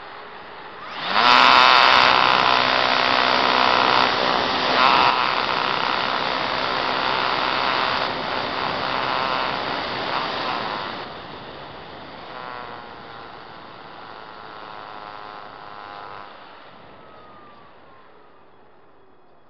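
Electric motor and propeller of an Apprentice RC trainer plane, heard from a camera on the plane. About a second in, the motor spools up sharply and then runs loud with wind rush. After about ten seconds it throttles back to a quieter whine that falls in pitch and fades.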